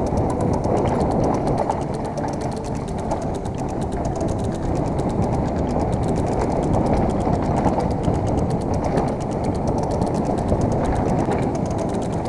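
Mountain bike descending a rough dirt trail at speed, heard from a helmet camera. Steady wind rumble on the microphone mixes with the bike rattling over the bumps and the rear freehub's fast, even ratchet clicking as it coasts.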